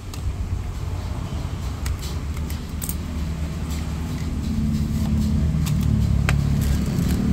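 A motor vehicle engine runs in the background as a low hum that grows louder about halfway through, with a few sharp clicks scattered over it.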